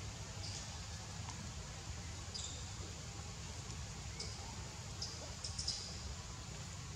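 Baby monkeys squeaking: short, very high-pitched squeaks several times, the closest together near the end, over a steady low hum.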